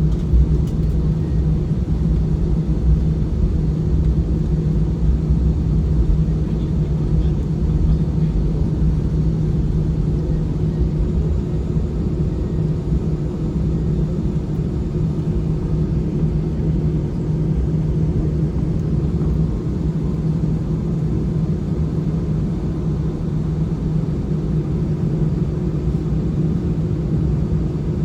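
Airliner engine noise heard inside the passenger cabin: a loud, steady hum with a low drone, unchanging throughout.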